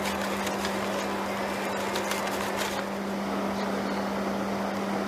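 Heavy military vehicle's diesel engine running steadily, heard as a constant hum under an even rushing noise.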